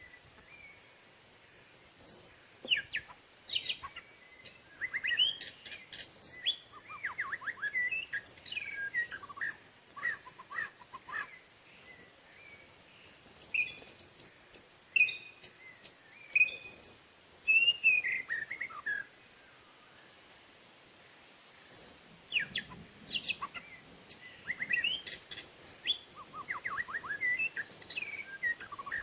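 White-rumped shama singing bursts of quick, varied whistled phrases and rapid trills, pausing for a few seconds past the middle before singing again. A steady high-pitched insect drone runs underneath.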